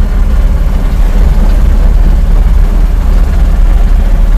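Vehicle driving over a washboard dirt road, heard from on board: a loud, low rumble of engine and running gear with continuous jolting and rattling.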